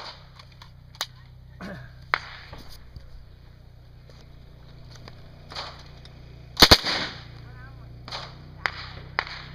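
Gunshots at a shooting range, fired singly and irregularly a second or more apart, with a quick pair of the loudest shots just past the middle.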